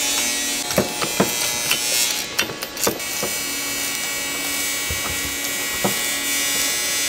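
Scattered sharp clicks and knocks, about eight of them and most in the first three seconds, as nuts are run onto the master cylinder's mounting bolts with a hand socket ratchet, over a steady background hum.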